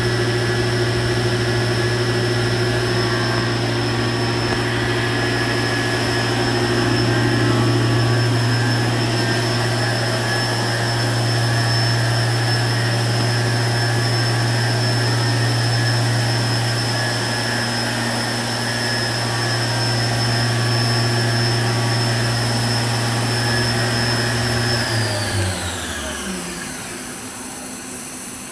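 Fadal VMC 15XT CNC machining center's spindle running at a steady speed, with a low hum and a high whine. About 25 seconds in, it winds down, its pitch falling smoothly as the spindle slows to a stop.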